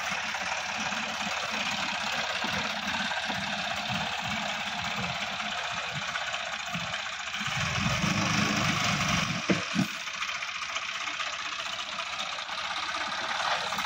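Sonalika DI-50 RX tractor's diesel engine running under load while the tractor drives through deep paddy mud. Its note grows louder and deeper for a couple of seconds about eight seconds in, followed by two sharp knocks.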